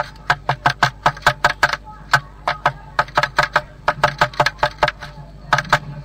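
A blue tit pecking hard at the inner wall of its nest box: runs of sharp taps, about five a second, pausing briefly twice, over a steady low hum.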